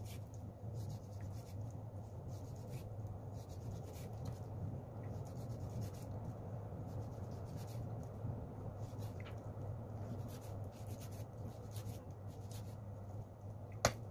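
Kitchen knife slicing raw beef thinly on a wooden chopping board: soft cutting strokes of the blade through the meat and onto the wood, about one every second, over a steady low hum. Two sharper knocks come near the end.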